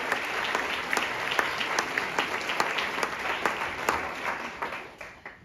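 Audience applauding, a dense patter of many hands clapping that dies away about a second before the end.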